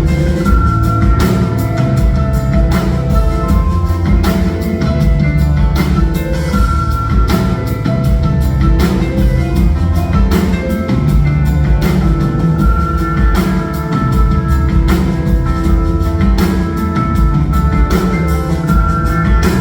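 Live band music: a drum kit keeping a steady beat, about two hits a second, under bass and held keyboard notes.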